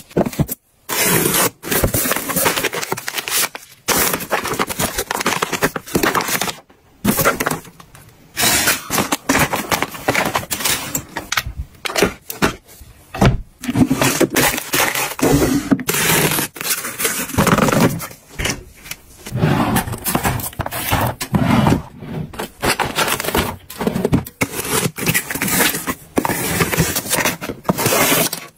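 Close-up handling of packaging and products: cardboard boxes and plastic wrapping scraping and crinkling, items set down with light knocks, and a drawer pulled open, in short bursts with brief gaps between.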